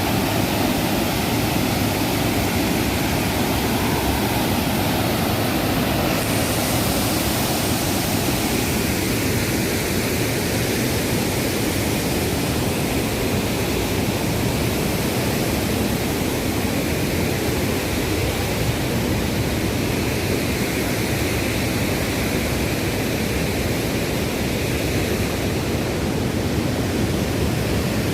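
Waterfall: falling water making a steady, loud rush of noise.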